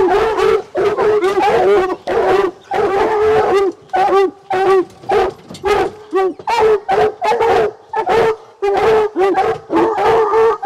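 A pack of English hounds baying, many loud calls overlapping one another without a break.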